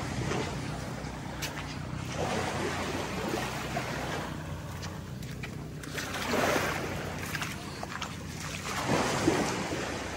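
Sea waves surging and washing in three swells, over a steady low hum.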